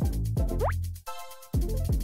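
Background electronic music: a deep kick drum struck about twice a second under short synth chords, with a quick rising glide about half a second in.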